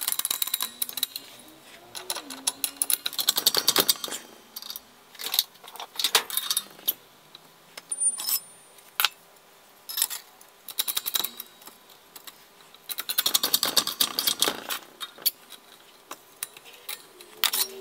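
Bursts of rapid metallic clicking and rattling with scattered sharp clanks as steel parts and tooling are worked at a small bench press brake, bending tangs in 3 mm structural steel.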